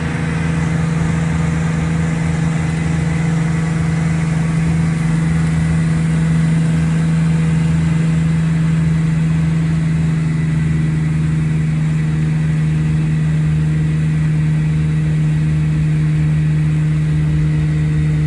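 Outboard motor running at a steady, unchanging speed, a loud even drone.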